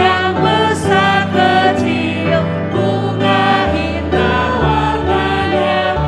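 A woman and a man singing a hymn in Indonesian as a duet, with piano and keyboard accompaniment holding sustained bass notes.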